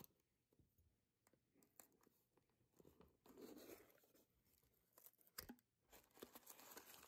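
Near silence with faint handling sounds as a small cardboard mailer box is cut open and its lid lifted: soft rustles about three and a half seconds in, a single click about five and a half seconds in, and a few small ticks near the end.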